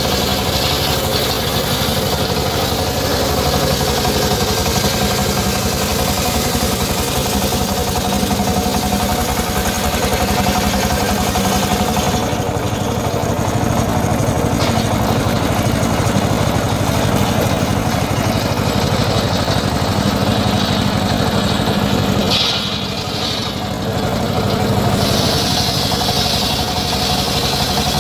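Engine of a homemade circular-saw rig running steadily, with a short dip in loudness about four-fifths of the way through.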